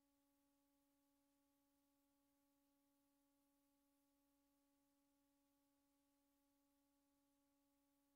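Near silence, with only a faint, steady hum and hiss.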